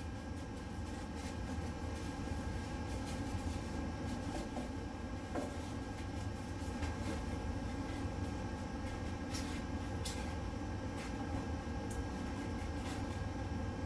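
A steady low machine hum, with a few faint clicks and scrapes as a foam board panel is pushed into place in the base of a table saw.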